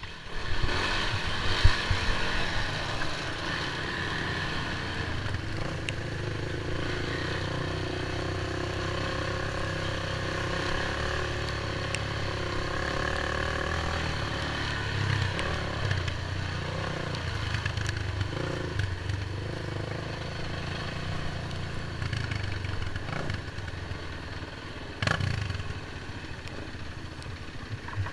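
ATV engine running steadily as the quad rides a rough dirt trail, with a few sharp knocks from the machine jolting over bumps, one about two seconds in and another near the end.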